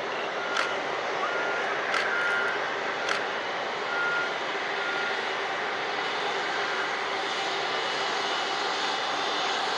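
Boeing 747 Dreamlifter's jet engines running with a steady, even noise. A few short high beeps sound in the first half, and three sharp clicks come in the first few seconds.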